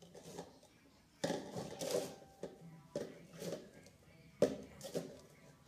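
Cups clattering and knocking together as they are handled and stacked into a tower: a series of short clatters and one sharp click about four and a half seconds in.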